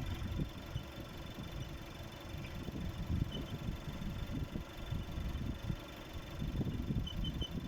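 Skoda Octavia A7 engine idling, with short high-pitched metallic squeaks from under the bonnet: a pair about three seconds in and a quick run of three near the end.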